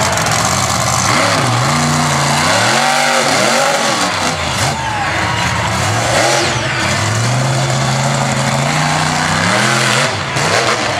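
Monster truck engine revving hard, its pitch climbing and dropping again and again, then held steady and high for a couple of seconds in the second half.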